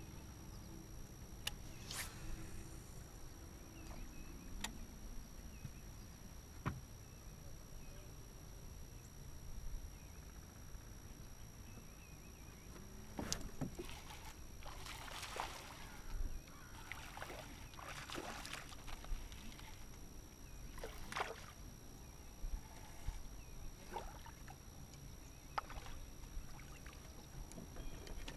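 A hooked largemouth bass splashing at the water's surface in several bursts during the middle of the fight, over a low steady rumble, with a few sharp clicks earlier on.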